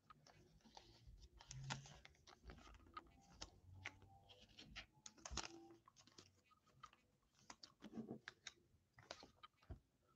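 Faint, irregular clicks and taps with light rubbing as baseball cards are handled, shuffled and set down on a table.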